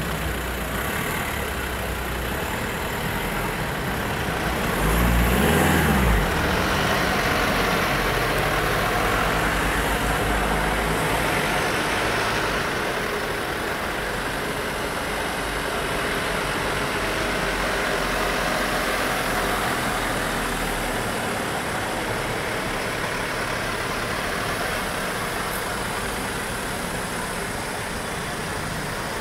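A slow convoy of police vans and buses driving past, a steady mix of engines and tyre noise, with one vehicle going by louder about five seconds in.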